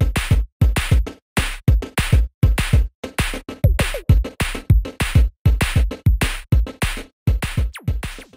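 Electronic music with a drum-machine beat, chopped into short stuttering bursts with silent gaps between them, about two a second.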